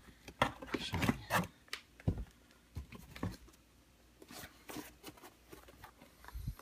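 Soft handling noises as sneakers are moved about: a few light knocks and rubs in the first two seconds, then fainter rustling.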